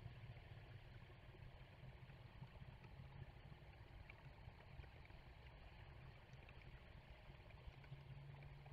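Near silence: a faint, steady rumble of distant road traffic.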